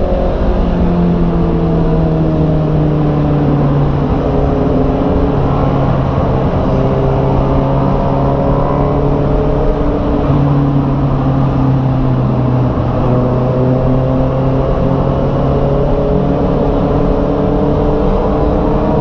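Honda CB650R's inline-four engine running on the move, its pitch drifting and stepping a couple of times as the revs change, over steady rumble of wind on the microphone.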